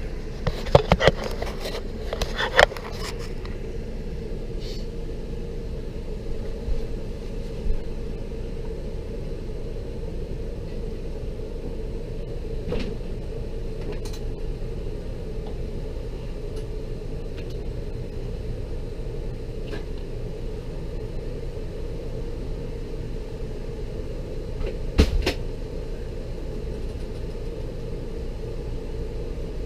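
Knocks and clunks of an old RV refrigerator being moved on a furniture dolly: a cluster in the first three seconds, a few faint clicks, and one loud bang about 25 seconds in, over a steady low hum.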